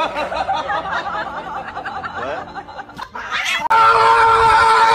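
Someone snickering and giggling in wavering bursts. About three and a half seconds in, a loud steady held tone cuts in sharply.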